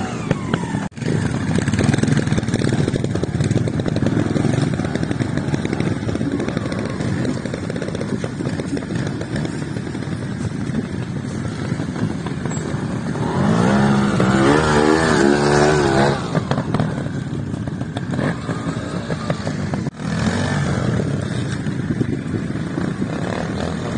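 Trials motorcycle engine revving on and off as the bike is ridden up a steep dirt slope. The loudest stretch is a few seconds of blipped throttle past the middle, its pitch rising and falling.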